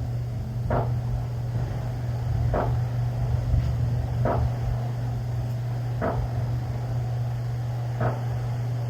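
Steady low drone of a running vehicle engine, with a short sound repeating about every two seconds.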